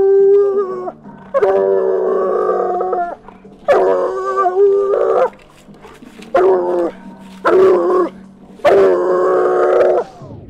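Coonhound bawling up a tree in six long, drawn-out howls of one to two seconds each, with short breaks between them. This is its tree bark, the sign that it has game treed.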